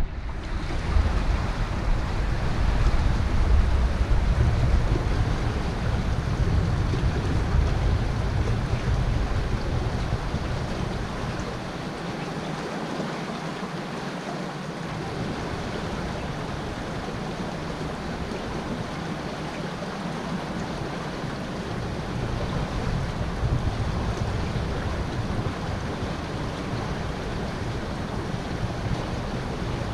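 River water flowing and lapping against a concrete bank, a steady rushing. Wind buffets the microphone as a low rumble, heaviest in the first dozen seconds, dropping out briefly about halfway, then returning in weaker gusts.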